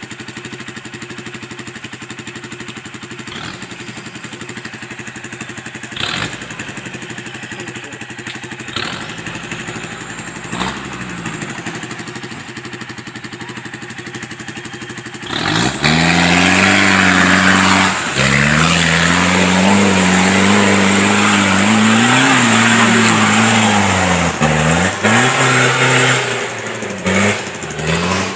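Off-road vehicle engine running at a steady idle for about fifteen seconds. It then turns much louder and closer, revving up and down in pitch for the rest of the time.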